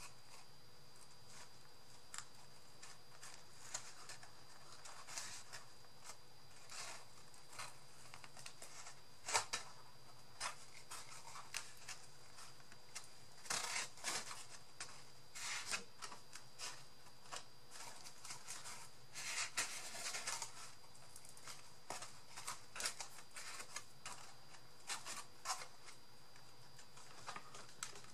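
Cardboard and paper pieces being handled and glued by hand: irregular rustles, scrapes and light taps, over a faint steady high-pitched tone.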